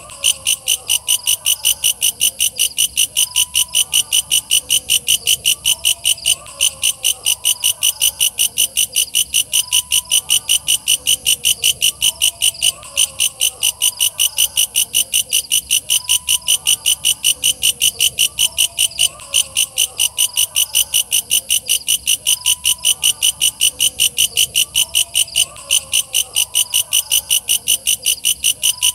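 Walang kecek katydid singing: a loud, high-pitched, rapid train of even pulses, about four a second, with a brief break every six seconds or so. Fainter warbling calls sound lower beneath it.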